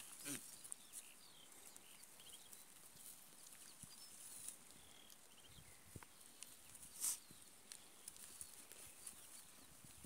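Near-silent ambience of a grazing sheep flock on pasture, with faint chirps and a short, sudden burst of noise about seven seconds in.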